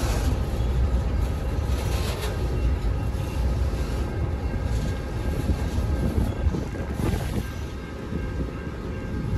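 Freight train cars rolling past at a grade crossing: a steady low wheel rumble, with brief metallic clatters as wheels pass over the rails.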